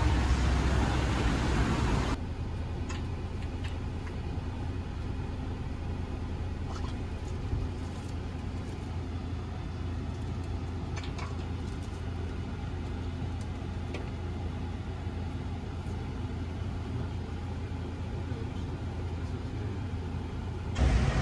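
Steady low hum of a passenger minibus's engine heard from inside the cabin, with a few faint clicks. It follows about two seconds of louder open-air background noise that cuts off abruptly.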